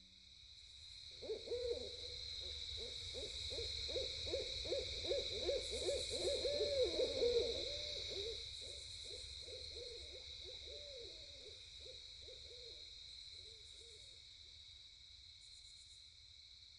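Owl hooting: a long run of quick, wavering hoots that starts about a second in, grows louder, then fades away, over a steady high hiss.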